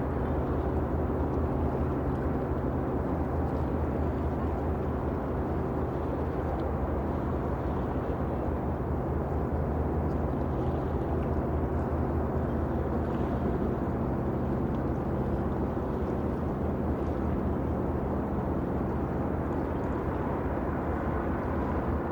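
Ship ambience: a steady low drone of a ship's engine, with even hum tones, over a wash of water noise, and faint short high chirps now and then.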